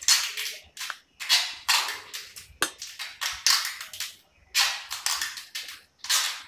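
Tape being pulled off the roll in about a dozen short, crackling tugs, one after another, as it is wound around a bundle of AC copper pipes.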